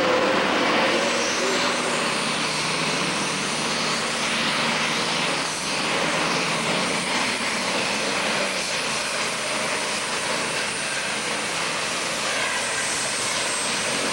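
Turbocharged diesel engine of a 7,700 lb Super Stock pulling tractor running flat out under load while dragging the weight sled. It makes a loud, steady roar, with a high turbo whine that climbs in the first two seconds and then holds.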